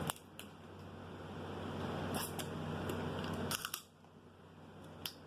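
Crab shells cracking and snapping as they are broken and picked apart by hand: a few sharp clicks and cracks, with a quick cluster about three and a half seconds in, over a low steady hum.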